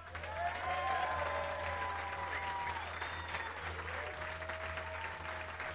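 Audience applauding, starting suddenly at full strength.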